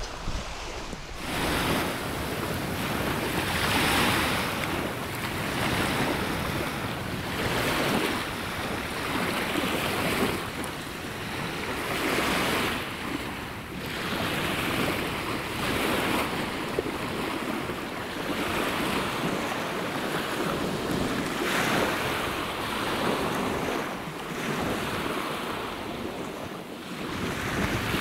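Small waves of the Sea of Azov washing onto a sandy shore, the surf swelling and fading about every two seconds, with wind on the microphone.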